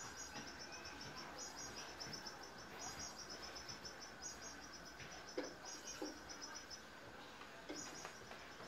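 Faint chirping of an insect: short, rapid trills repeating about every second and a half, with a few soft thumps a little past halfway.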